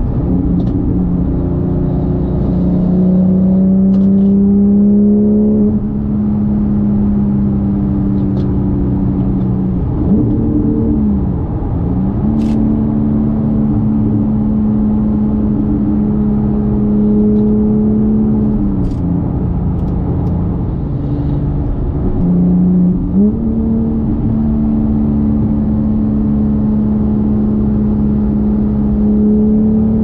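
Porsche 911 GT3 Touring's naturally aspirated flat-six running steadily at moderate revs under light throttle, with road noise underneath. The engine pitch falls and climbs back about ten seconds in, then drops again around nineteen seconds and rises back near twenty-three seconds as the revs change.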